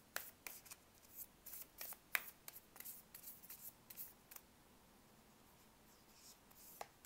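Faint shuffling of a Moonology oracle deck in the hands: soft scrapes and light ticks of card edges sliding against each other, which stop about four and a half seconds in, with one more tick near the end.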